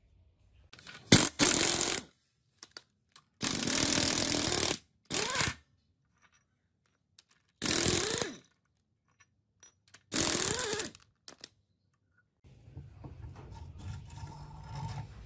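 Handheld power tool with a long socket extension spinning the cylinder-head nuts off a Yanmar S13 diesel, in five short bursts of about a second each, its pitch rising and falling within each burst.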